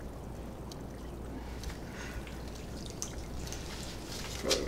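Water being poured from a kettle into a mug, a steady trickle over a low room hum, with a brief voiced sound just before the end.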